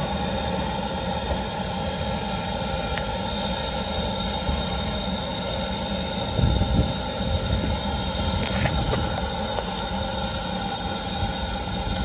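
Standing steam locomotive hissing steadily as steam escapes from it, with a brief low rumble swelling up about halfway through.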